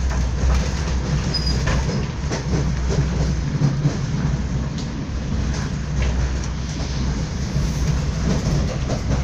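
A train running, heard from inside the passenger carriage: a steady low rumble with irregular clicks and knocks from the wheels on the track.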